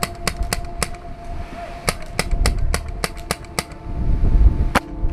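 Paintball markers firing: a run of sharp pops, several a second in irregular clusters, with short pauses between them.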